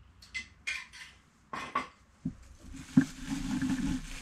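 A metal spoon stirring coffee in a glass mug, clinking against the glass several times in quick succession. About three seconds in comes a sharp knock, followed by about a second of crackling.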